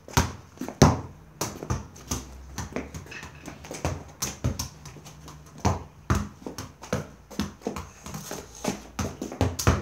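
A run of irregular thumps and knocks, roughly one or two a second, some of them sharp.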